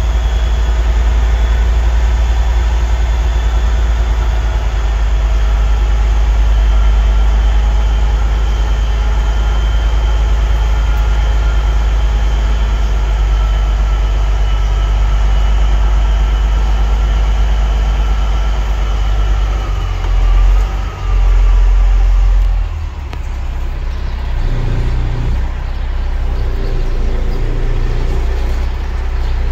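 Kenworth semi truck's diesel engine running, heard inside the cab: a steady low drone with fainter steady tones above it. About twenty seconds in, a few low bumps and rumbles from the phone being handled, after which the engine sounds quieter.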